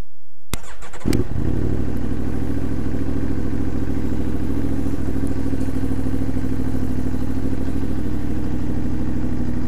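2015 Aprilia Tuono V4R's V4 engine, on its stock exhaust, starting up: a click, then the engine fires about a second in and settles straight into a steady, high idle of about 1500 rpm.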